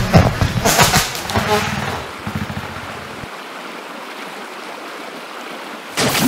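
The last beats of a music track die away by about two seconds in. They leave a steady rushing hiss with no bass. Near the end a loud burst of TV-static noise cuts in.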